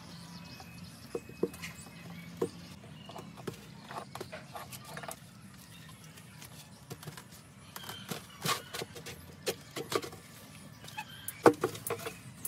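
Inner mold panels being pried and pulled free from a freshly cast cement planter: scattered light knocks, taps and scraping of the panel against the cement, with a few sharper knocks in the second half.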